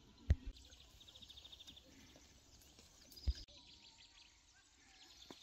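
Faint open-air ambience with a high, rapid trill about a second in and a few faint chirps near the end. Two short, sharp low knocks stand out, one just after the start and one about three seconds in.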